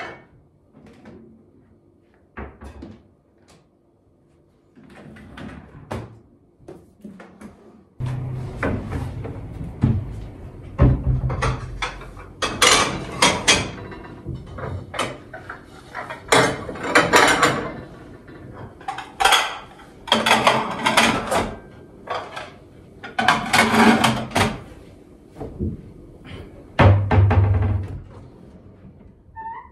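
Plates and dishes clinking and being stacked as a dishwasher is unloaded into cupboards, with cupboard doors and a drawer opening and closing. Background music comes in about eight seconds in and is the loudest sound from then on.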